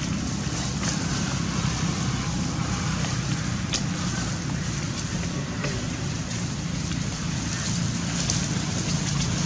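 Steady outdoor background noise with a low hum and a few faint clicks.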